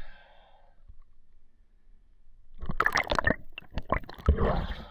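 Water splashing around a mask-mounted camera as a freediver ducks under the surface, with a run of loud, irregular splashes starting a little past halfway.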